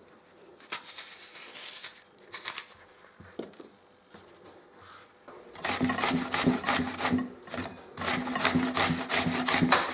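Green apple rubbed up and down the coarse side of a metal box grater: rapid rhythmic rasping, about four strokes a second, in two runs through the second half. Before it, a teaspoon scraping the core out of an apple half, faint, with a few small knocks.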